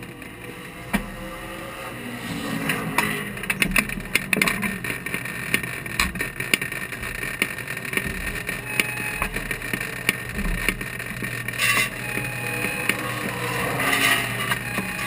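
Race car engine running steadily, heard from under the front suspension, with scattered clicks and knocks; it gets louder near the end.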